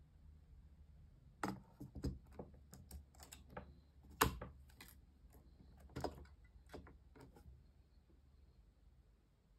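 Irregular sharp plastic clicks and taps as an AA battery is worked out of the battery compartment of a slim plastic Logitech MK470 keyboard, with the loudest click about four seconds in and the clicking stopping near the end.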